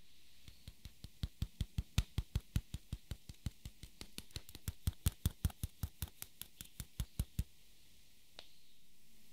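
A fine-mesh sieve tapped rapidly, about four or five light taps a second for some seven seconds, sifting a dusting of powder onto the cake's top. One more single tap follows about a second later.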